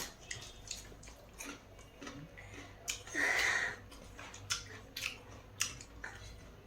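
Close-up eating noises: scattered small clicks and smacks of chewing, with a brief hissing sound a little after three seconds in.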